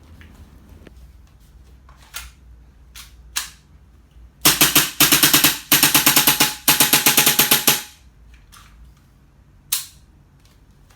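Airsoft Hi-Capa gas blowback pistol, built on a Tokyo Marui base, firing in rapid strings of shots from about four seconds in to about eight seconds in, with short breaks between them. A few single sharp clicks come before the strings and one comes after them.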